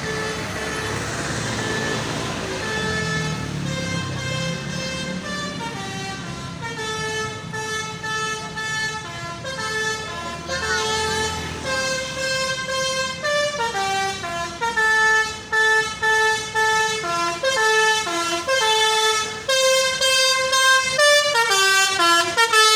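Basuri telolet bus horn: a multi-tone air horn playing a tune, its notes stepping up and down in pitch, over a low rumble in the first few seconds. From about two-thirds of the way through, the notes come shorter and quicker, with brief gaps between them.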